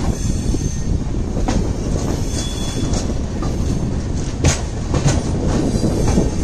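LHB passenger coach running along the track, heard from its open doorway: a steady rumble of wheels on rail with irregular sharp clacks as the wheels cross points and rail joints, and a couple of brief faint wheel squeals.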